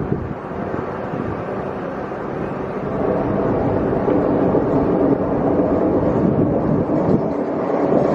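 Passenger train pulling into a station platform, its rumble growing louder about three seconds in.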